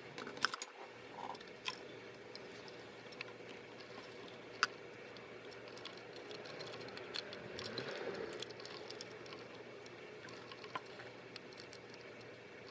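Scattered small clicks and taps from handling the small parts and tools of a compact digital camera being repaired, with a sharper click about half a second in and another near five seconds in, over a faint steady background hum.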